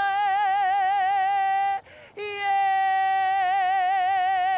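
A woman's karanga, the Māori ceremonial call: one high voice holding long, wavering notes. After a short breath about two seconds in, she holds a single long note that steadies.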